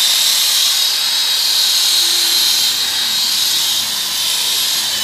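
Electric car polisher running steadily with a high whine as its compound pad works over dull car door paint.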